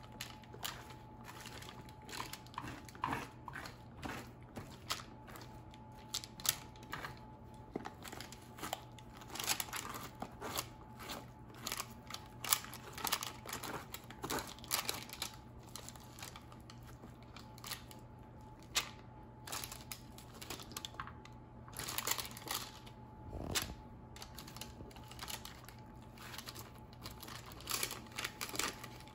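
Metal spoon scooping the seeds and stringy pulp out of a halved baked spaghetti squash: irregular soft scrapes, squelches and clicks against the squash shell and the baking sheet, with parchment paper crinkling underneath.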